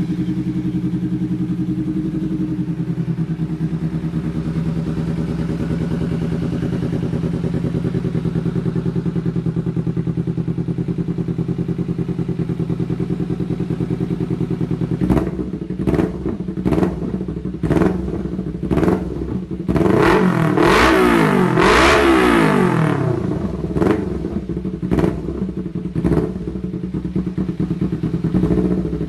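Kawasaki Ninja 250 FI's parallel-twin engine through a Pro Liner aftermarket slip-on exhaust, idling steadily. About halfway through, a string of quick throttle blips begins, with one longer rev a little later that climbs and falls back.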